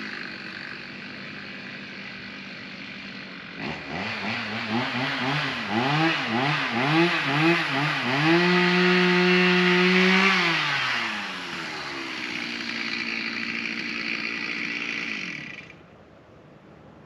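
Chainsaw revved in quick bursts, then held at high throttle for about two seconds. It drops back to a lower steady running and cuts off suddenly near the end.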